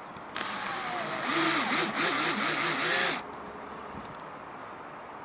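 Cordless drill driving a screw through an antenna mounting plate into an RV roof. Its motor whine rises and falls as it runs for about three seconds, then stops.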